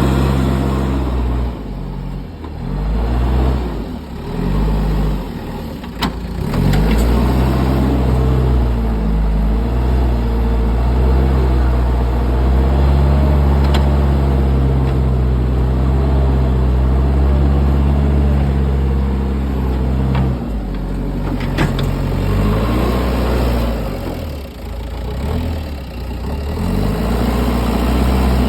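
JCB backhoe loader's diesel engine working, its revs dropping and climbing back a couple of times and holding steady and high through the middle. A few sharp clanks cut through it.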